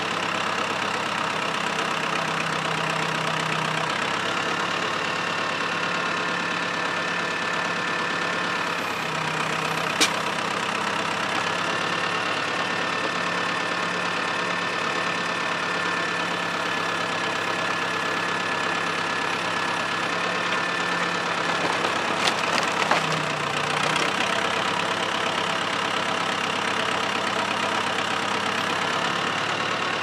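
Old Valmet 872K forwarder's diesel engine running steadily while its hydraulic crane loads sawmill slabs. A whine steps up and down in pitch several times as the crane works. There is a sharp click about a third of the way in and a brief clatter of knocks about two-thirds through.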